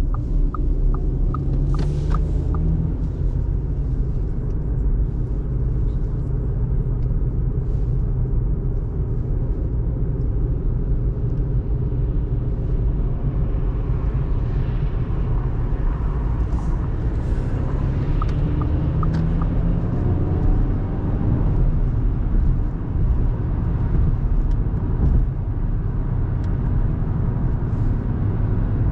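Steady low rumble of a 2024 Audi A3 Sportback 1.5 TFSI on the move: tyre and engine noise from its turbocharged four-cylinder petrol engine. A regular ticking runs for the first couple of seconds, and the engine note glides up and down around halfway through.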